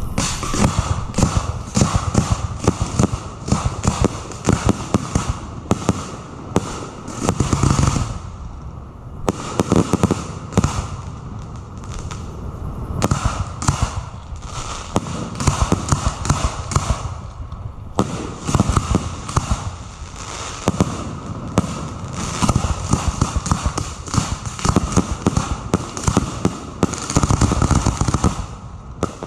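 Display fireworks firing at close range in a dense barrage: sharp launch reports and shell bursts, several a second, with brief lulls. These are the last cues of the show, fired in quick succession.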